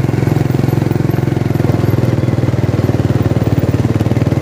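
Small motorcycle engine running steadily close to the microphone, with a rapid, even beat of firing pulses.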